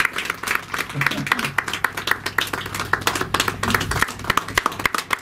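People clapping: separate, uneven hand claps, several a second.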